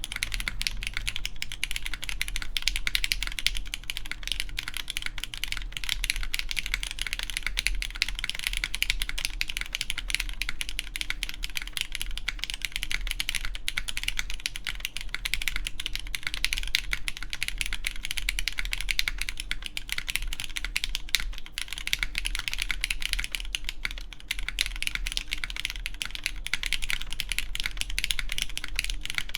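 Continuous typing on a RAE ADAMAS mechanical keyboard with lubed Cherry MX Black clear-top (Nixie) linear switches, GMK Copper keycaps and a full aluminium plate: a dense, unbroken run of keystroke clacks.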